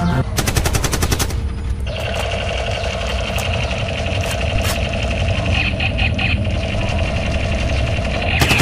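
A short burst of rapid automatic fire, about a dozen shots in a second, then a long steady rattling buzz that cuts off near the end.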